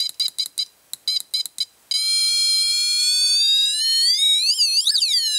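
Junior Theremin kit's piezo speaker: a rapid train of short buzzy beeps, about six a second, then at about two seconds a continuous buzzy tone that slowly rises in pitch and swoops up and down a few times, its pitch set by how close a hand is to the wire antenna.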